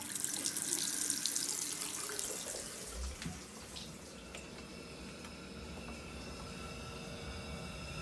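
Tap water running while a boiler condensate trap is rinsed clean. About four seconds in it gives way to a quieter steady hum with faint high whining tones.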